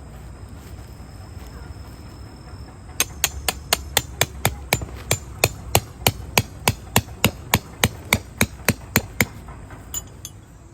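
A hammer driving a tent peg into the ground: about two dozen sharp, even strikes, roughly four a second, starting a few seconds in and stopping about two seconds before the end, with one lighter tap after.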